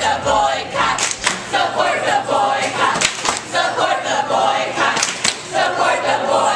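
A group of people singing and chanting loudly together, with a pair of sharp hits about every two seconds keeping the rhythm.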